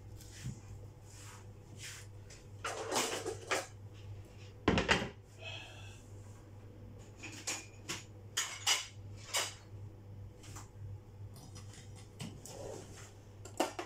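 Kitchen handling sounds: scattered knocks and clatters of things being moved about and set down on a counter, with a louder thump about five seconds in. A steady low hum runs underneath.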